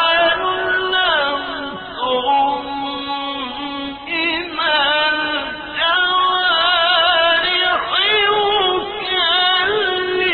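A man's solo Quran recitation in the slow, melodic mujawwad style. He draws out long held notes with wavering ornaments, with brief breaks between phrases.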